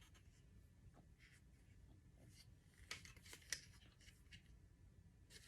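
Near silence with a few faint clicks and rubs of something small being handled, two of them a little louder about three seconds in.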